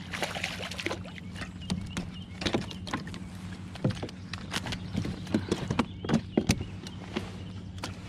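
Irregular knocks and clacks on a plastic pedal kayak as a freshly caught pickerel is handled and unhooked from a frog lure, with the sharpest knocks about two-thirds of the way in. A steady low hum runs underneath.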